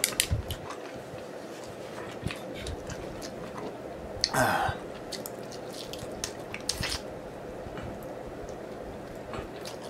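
Close-up eating of sticky chicken wings: wet chewing and biting with many small mouth clicks and smacks. There are two louder wet bursts, about four and seven seconds in.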